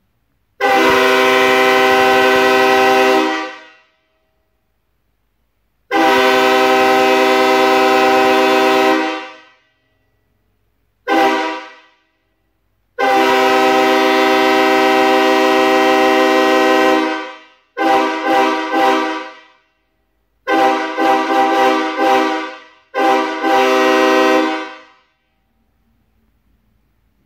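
Freshly restored Nathan K5HL five-chime locomotive air horn blown from air tanks: three long blasts and one short blip, then clusters of quick stuttering toots and a final shorter blast. The chord is mellow, with the chimes blending well and no warble, a sign that the reassembled diaphragms are seated right.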